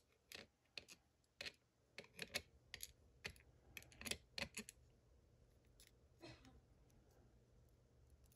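Faint, irregular clicks of a lock pick working the pin stack inside a Toledo Black TBK90R padlock's six-pin core, as the pins are lifted and set under tension. The clicks come thick for about the first five seconds, then thin out.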